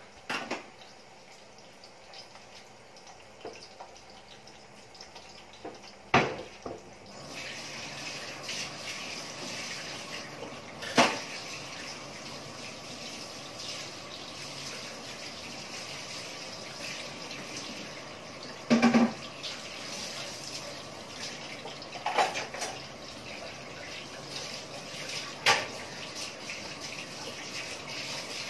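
Pork adobo and potatoes simmering in pans on the stove: a steady bubbling hiss that grows louder about seven seconds in, with a handful of sharp pops.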